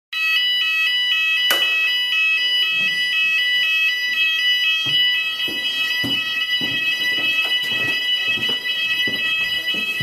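Fire alarm sounders going off the instant a red manual call point is activated with a test key: a loud, high electronic alarm tone that pulses rapidly. Several dull knocks come in from about halfway through.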